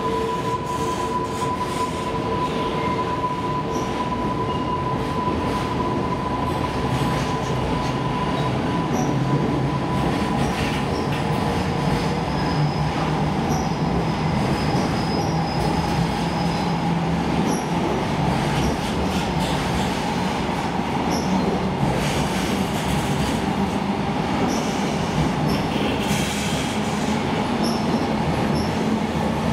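Container freight train wagons rolling slowly past, with a steady rumble of steel wheels on rail. A thin wheel squeal is heard in the first half and fades out about halfway through.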